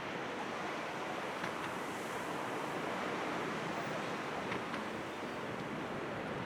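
Airbus A380 jet engines heard from a distance as a steady, even roar without a distinct pitch.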